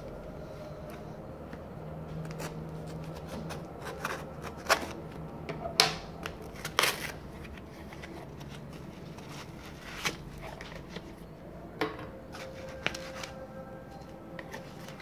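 A tape-wrapped cardboard box being cut and torn open by hand: rustling and scraping, with scattered sharp rips and snaps, a cluster of the loudest a few seconds in.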